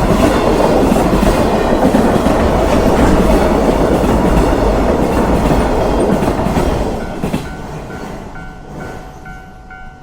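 Train running past on the rails with clickety-clack. It stays loud, then fades away after about seven seconds. As it fades, a short high tone starts repeating about twice a second.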